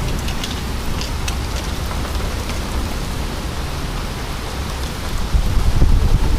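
Heavy thunderstorm rain falling steadily, with scattered sharp ticks of drops striking close by. A low rumble swells louder about five seconds in.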